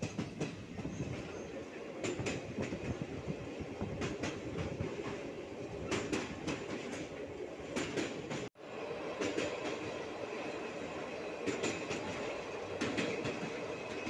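Train running, heard from aboard a moving coach: a steady rumble of wheels on track, with groups of sharp clicks every couple of seconds as the wheels pass over rail joints. The sound cuts out for a split second just past halfway.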